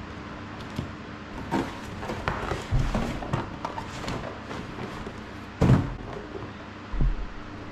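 Cardboard boxes handled by hand: a boxed hand pump is slid and lifted out of a shipping carton, with scraping, rustling and light taps of cardboard. There is one loud thump a little past halfway and a smaller thump near the end.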